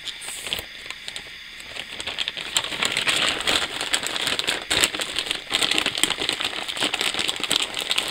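Plastic mailer bag crinkling and rustling as it is opened and cellophane-wrapped cigars are pulled out. It is softer at first, then a dense crackle of plastic from about two seconds in.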